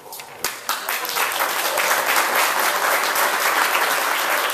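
Audience applauding at the end of a poem: a few separate claps at first, filling out within about a second into steady applause.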